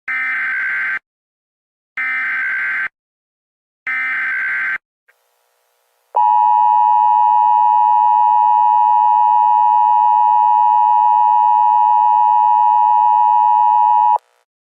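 Emergency Alert System broadcast: three bursts of SAME digital header data, each about a second long with about a second between them, a warbling data chirp that encodes the alert. About six seconds in, the EAS two-tone attention signal (853 Hz and 960 Hz together) starts and holds steady for about eight seconds, then cuts off sharply.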